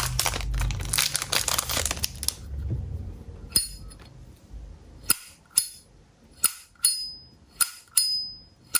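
1971 Zippo lighter handled with rustling at first, then its lid flicked open and snapped shut again and again: about seven sharp clicks in the second half, several ringing with a bright metallic ping. This is the lighter's original, unrepaired lid sound.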